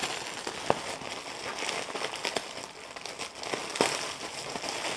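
Packaging of a starter-kit box being opened by hand: crinkling and rustling, with a few scattered sharp clicks.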